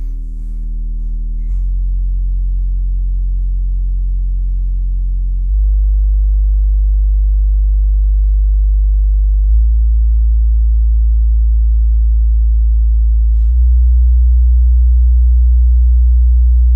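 XTZ 1217 Edge subwoofer playing a steady deep bass test tone that steps to a new pitch about every four seconds, a little louder at each step. The test checks whether the cabinet vibrates.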